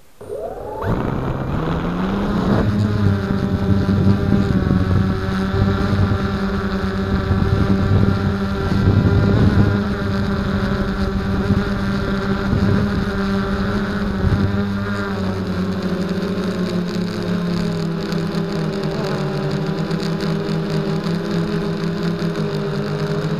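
Electric motors and propellers of a DJI Flame Wheel F330 quadcopter, heard close from its onboard camera. They spin up with a rising whine about a second in, then run as a steady multi-toned drone through take-off and flight, the pitch shifting slightly with throttle.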